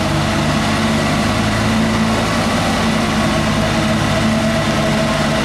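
A loaded light truck's diesel engine running steadily at low speed as the truck crawls through mud, its low hum even throughout.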